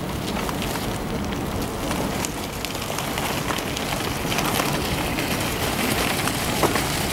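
Alstom Citadis tram rolling slowly toward the listener on its rails, heard as a steady crackling noise with scattered clicks and a low rumble that grows a little louder as it nears.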